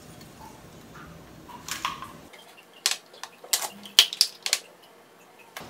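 White plastic measuring cups and spoons clicking and clattering against each other and the tabletop: a scatter of sharp, separate clicks, thickest about halfway through.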